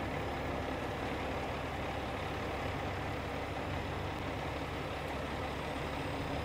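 Diesel engine of a 50-ton rotator tow truck running steadily while its boom holds a burnt semi trailer in the air.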